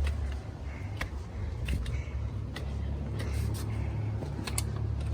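Footsteps on a hiking trail, heard as scattered light clicks over a steady low rumble.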